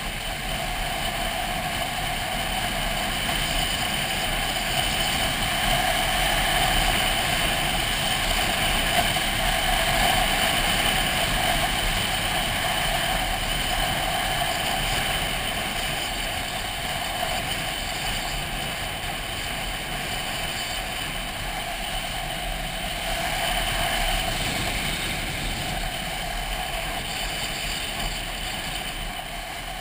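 Motorcycle riding at a steady cruise, its engine running evenly under a rush of wind noise. The level swells a little twice as the speed changes.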